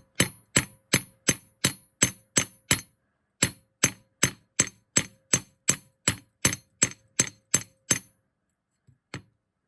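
Steady hammer blows on 2 mm Argentium silver wire, about three a second, each with a short metallic ring, flattening the wire's end into a paddle. There is a short pause after the first nine or so strikes, then a longer run, and the hammering stops a couple of seconds before the end.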